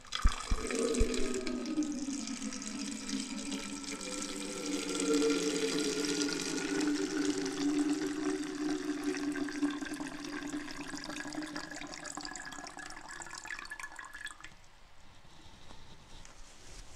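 A man urinating into an empty plastic Prime drink bottle: a steady stream splashing into the bottle with a hollow ringing note that shifts in pitch as it fills. It tails off to faint dribbles about fourteen seconds in.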